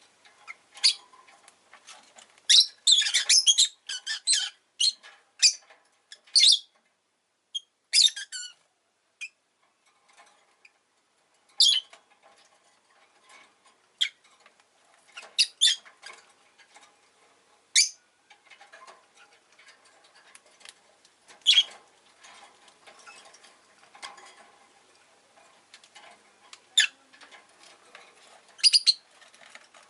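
Rosy-faced lovebird giving short, sharp chirps and squawks at irregular intervals, with a quick run of calls about three seconds in.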